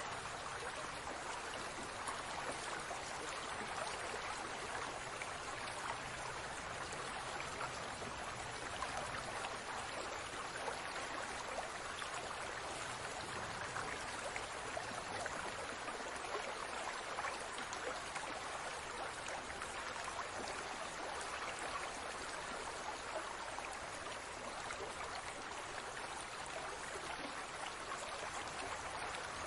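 Aquarium water bubbling and trickling steadily, with a dense patter of small bubble pops.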